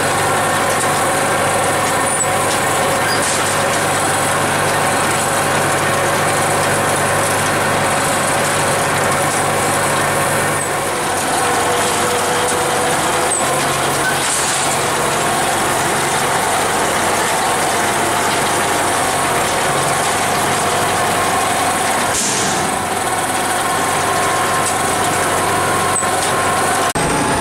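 Tractor-drawn small square baler running steadily while baling straw: a continuous machine drone with a constant engine hum.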